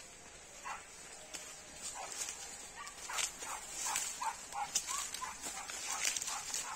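A run of short, high animal calls, about three a second and thickest in the second half, over scattered light clicks and rustles.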